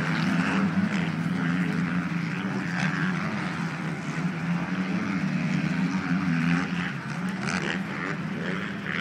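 Several motocross bikes running on the track out of view, their engines blending into one steady mechanical sound whose pitch keeps rising and falling as riders rev and shift, dropping off somewhat near the end.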